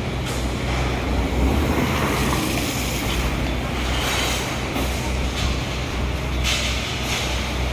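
Street traffic with heavy vehicle engines running steadily, and a short hiss near the end.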